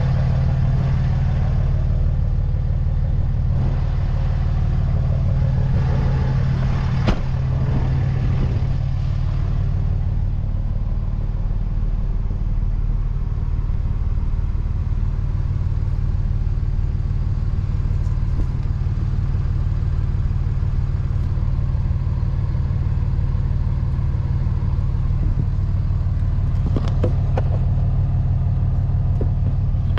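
2006 Dodge Ram 3500 pickup's engine idling steadily, with a single sharp click about seven seconds in.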